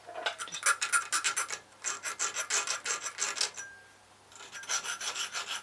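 A small hand file scraping in quick back-and-forth strokes along a freshly hand-cut key, deburring its sharp edges. The strokes pause briefly a little past the middle.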